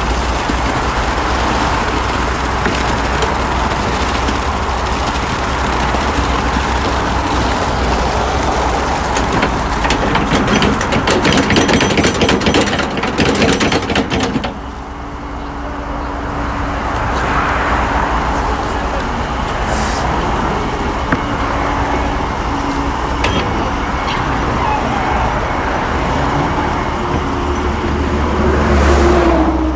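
Steady engine rumble with a wash of mechanical noise. It grows a little louder, then drops off sharply about halfway through and carries on more quietly.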